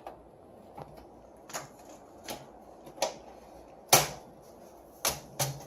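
Sharp clicks and knocks of parts being handled and fitted in a desktop computer case, about seven in all, the loudest about four seconds in.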